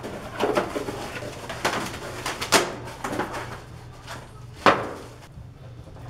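Plastic bag wrapping and cardboard packaging rustling and crinkling as bicycle parts are pulled out of the box, with a few sharp knocks, the loudest about two and a half and four and a half seconds in, over a low steady hum.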